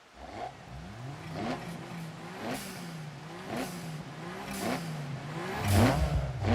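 Car engines being revved over and over at the start line, the pitch climbing and dropping about once a second and getting louder toward the end.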